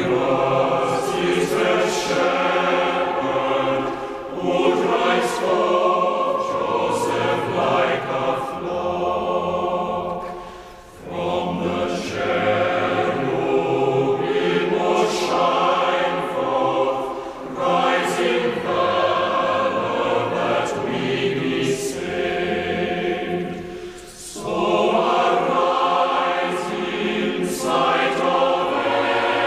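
A choir singing a slow piece in long phrases, with short breaths between phrases about ten and twenty-four seconds in.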